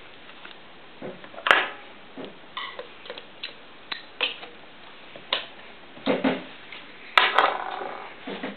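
Irregular clicks and clattering knocks, about a dozen spread unevenly, from handling at a walking foot sewing machine. The loudest come about one and a half seconds in and about seven seconds in.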